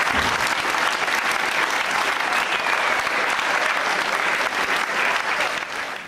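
Theatre audience applauding steadily at the close of an act, the sound cutting off sharply near the end.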